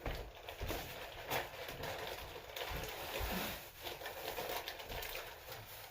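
Paper rustling and crinkling in irregular bursts as a wrapped present is opened, with a few soft low thumps of handling.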